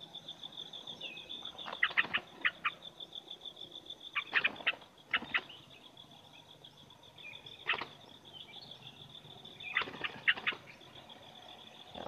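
A bulbul caught in a fish net flaps in several short bursts of quick strokes. Behind it runs a steady, fast-pulsing high insect trill.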